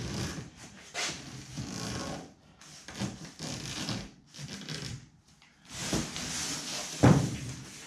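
Razor blade scraping along a metal screen frame, cutting away the excess screen mesh in irregular strokes with short pauses between them. A sharp knock comes about seven seconds in.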